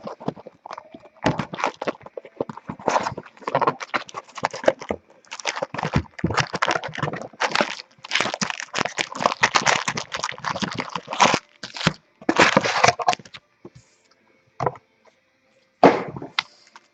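Trading card packs being torn open and cards handled: repeated crinkling and rustling of foil wrappers and card stock, in bursts with short pauses.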